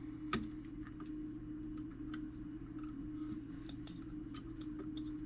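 Light, irregular clicks and taps of brass clock parts being handled while the wheel pivots of a fusee clock movement are fitted into the plate, over a steady low hum.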